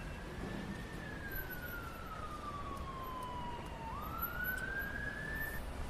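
Emergency vehicle siren wailing over a low traffic rumble: its pitch falls slowly for about three seconds, then rises quickly and stops near the end.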